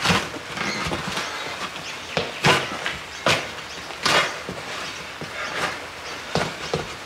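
A sledgehammer striking a tractor tyre beside its steel rim, a series of sharp blows with the loudest three coming in quick succession midway, driving the tyre's bead off the rim.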